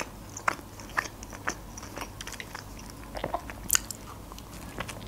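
Chewing and biting a toasted cheese sandwich close to the microphone: scattered soft crunches of toasted bread and wet mouth clicks, with one sharper crunch about three-quarters of the way through.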